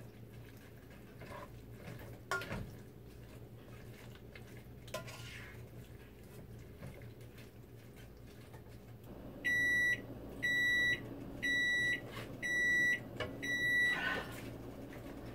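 Microwave oven beeping five times at the end of its cycle, each beep a steady high tone about half a second long. Before the beeps there are only faint clicks of utensils at a pan over a low steady hum.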